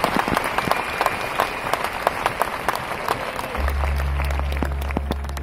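A large audience clapping and applauding, a dense patter of claps. About three and a half seconds in, a steady deep low drone comes in under the applause.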